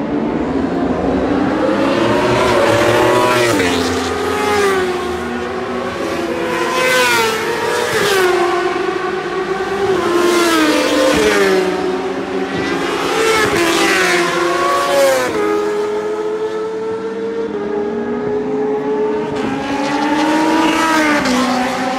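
Racing superbike engines at high revs, several bikes passing in turn and overlapping: each engine climbs in pitch and drops sharply at each upshift, about a dozen times.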